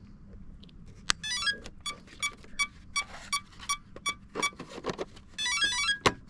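An electronic beeping tune: a fast rising run of notes, a string of short, evenly spaced beeps, then another fast run, with a few sharp clicks between them.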